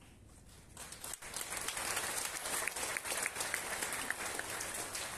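Church congregation applauding, the clapping rising about a second in and beginning to thin near the end.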